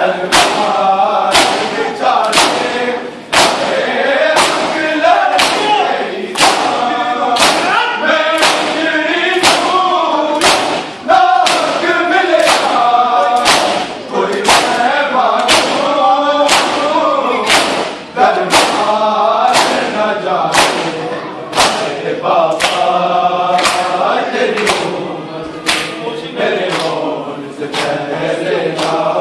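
A crowd of men chanting a noha in unison while beating their bare chests with their palms in time (matam), a sharp slap a little more than once a second.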